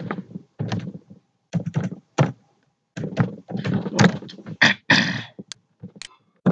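Computer keyboard keystrokes: a series of irregular thuds and clicks as a line of code is typed.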